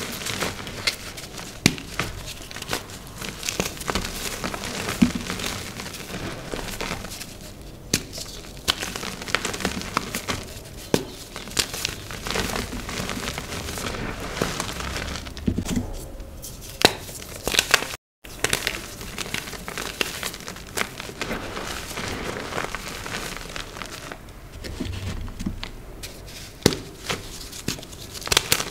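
A gym chalk block being crushed and crumbled, giving dense, irregular crunchy crackles and soft dusty crumbling, with a short break in the sound about two-thirds of the way through.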